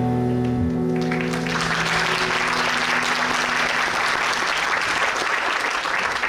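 A live band's final chord rings out and dies away within the first second. Then the concert audience breaks into steady, loud applause.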